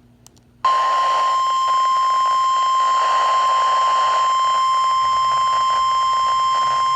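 Weather-radio alert tone, the single steady warning tone of NOAA Weather Radio, switching on suddenly about half a second in and holding unbroken over radio hiss. It marks the start of a new warning broadcast, here a flood warning.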